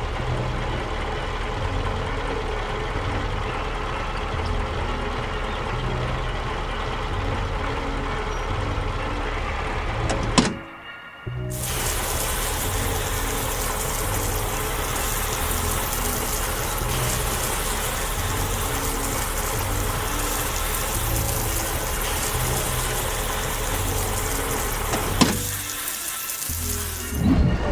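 Background music with a repeating bass line, joined about twelve seconds in by a steady rushing noise like pouring or flowing, which drops away just before the end.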